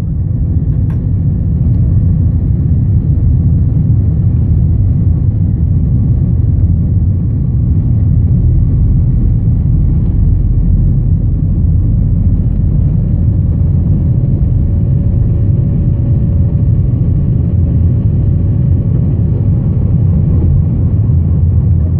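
Jet airliner's engines at takeoff thrust, a loud steady rumble heard from inside the cabin through the takeoff roll and lift-off. A faint thin whine rises over the rumble in the later seconds.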